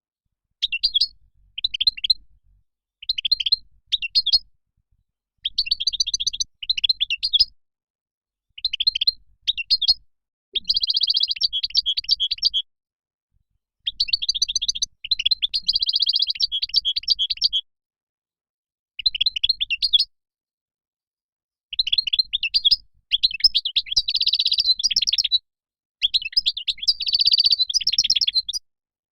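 European goldfinch song: rapid, liquid twittering phrases of a second or two each, separated by short gaps of complete silence.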